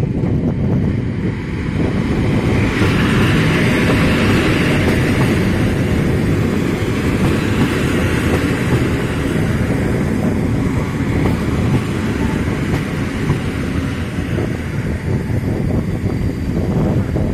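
Electric locomotive-hauled passenger train rolling past along the platform: a steady rumble of coach wheels on the rails.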